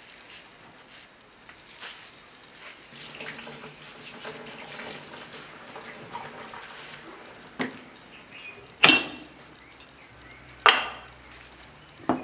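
Kitchenware handled at a stainless-steel sink and stone counter: faint rustling and water sloshing as a plastic saucepan is dipped, then four sharp knocks in the second half, two of them loud, as the saucepan and a metal kettle are set down and handled.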